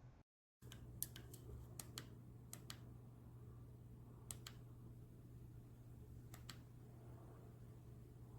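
Near silence: room tone with a steady low hum and scattered faint clicks, several of them in quick pairs.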